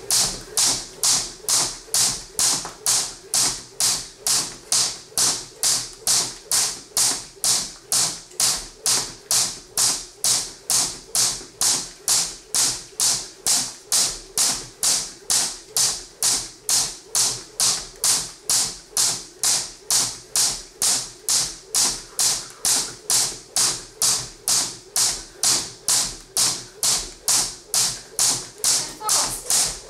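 Crossrope jump rope turning at a slow, steady skipping pace, its cable slapping the floor about twice a second in an even rhythm.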